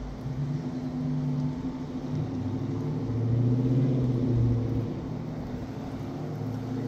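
Motor vehicle engine humming close by, growing louder around the middle and then fading, its pitch dropping and rising slightly as it goes.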